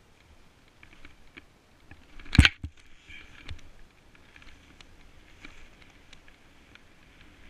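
Snowboard sliding through deep powder snow, heard from a camera on the rider: a soft hiss of snow with scattered small knocks, and one sharp thump about two and a half seconds in, followed by a short spell of louder snow hiss.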